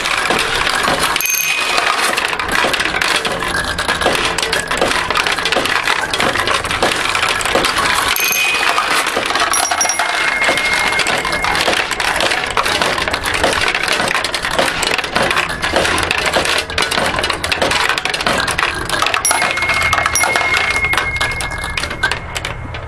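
Steel pachinko balls clattering and rattling continuously through the mechanism of a Model A recycler pachinko machine as it is played. A few brief ringing tones sound over the clatter.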